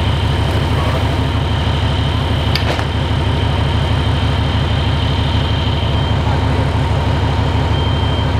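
A fire engine's diesel engine running steadily: a deep, even rumble with a thin, steady high whine over it.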